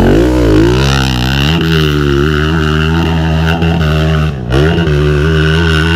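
Off-road motorcycle engine running under changing throttle, its pitch wavering, with a brief let-off about four and a half seconds in.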